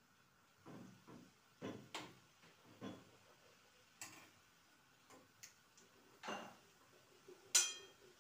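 Metal spoon scraping and knocking against a small frying pan as lettuce leaves are stirred: scattered short scrapes and clicks, with a louder ringing clink of metal on the pan near the end.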